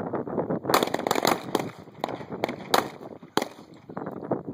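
Pistol shots: a quick, uneven string of several sharp reports, starting just under a second in, over steady wind noise on the microphone.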